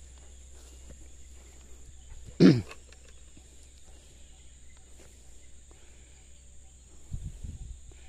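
Outdoor field ambience with a steady high drone and a low hum. About two and a half seconds in, one short loud cry falls in pitch, and there is soft low rumbling near the end.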